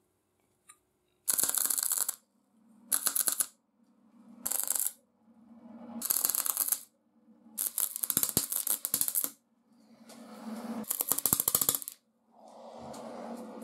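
MIG welder laying short welds on steel parts: seven separate crackling, sputtering bursts of arc, each half a second to two seconds long, with short pauses between and a low hum under the later ones. The last burst is softer.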